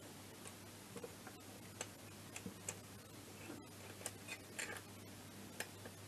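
Faint, irregular light clicks of a head gasket being handled and fitted onto the cylinder of a scooter engine, over a steady low hum.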